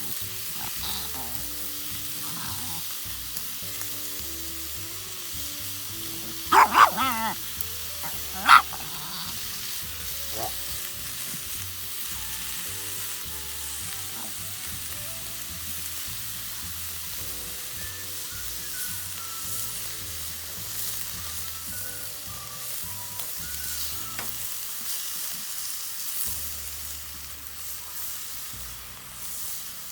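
Steady sizzling hiss from a fire pit in use. A dog gives a quick cluster of short barks about six and a half seconds in and one more bark about two seconds later. Faint background music runs underneath.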